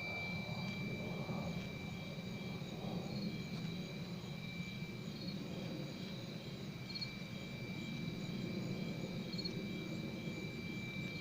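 An unidentified steady, high-pitched ringing tone, with a fainter higher tone above it and short chirps repeating about every two seconds, over a constant low rumble.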